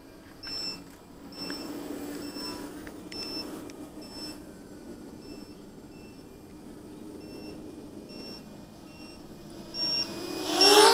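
Short electronic beeps, about one a second, from a small beeper. Near the end a model aircraft's motor whine sweeps loud and then falls in pitch as it flies close past.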